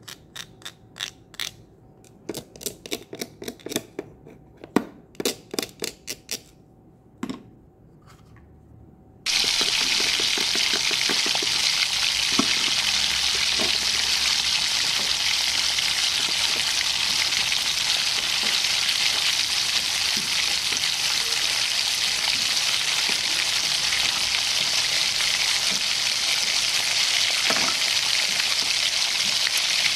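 Plastic toy cookware and toy food clicking and clacking as they are handled and set down. About nine seconds in, a steady frying sizzle starts abruptly and carries on: an added sound effect for the pretend frying in the plastic toy pan.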